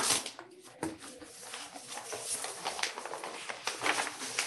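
Paper rustling and crackling in quick irregular bursts as the sealed tender documents are handled between bids.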